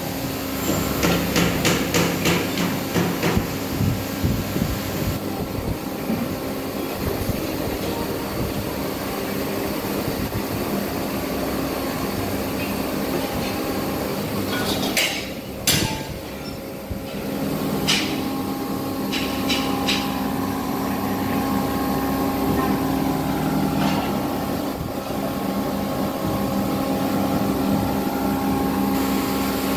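Workshop noise: a steady machine hum, with a quick run of sharp hammer taps in the first few seconds and a few louder knocks around the middle.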